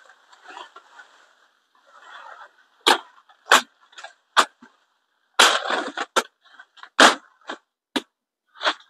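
Coffee branches being cut and snapped off by hand: rustling leaves at first, then a series of about a dozen sharp snaps from about three seconds in.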